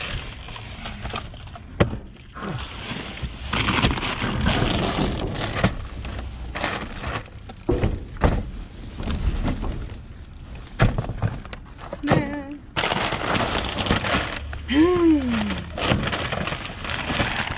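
Plastic bags, bubble wrap and foam packing rustling and crinkling as trash is pushed and pulled about, with scattered sharp cracks and knocks.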